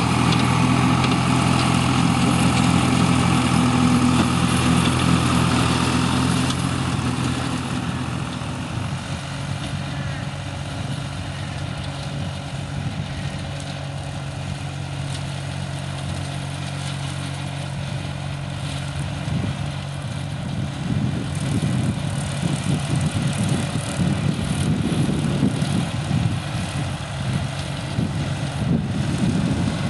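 Ferrari Cobram 65 RS compact tractor's engine running steadily under load while its rear slasher mower cuts long dry grass. The sound is louder for the first few seconds, drops back, then grows louder and rougher again after about twenty seconds.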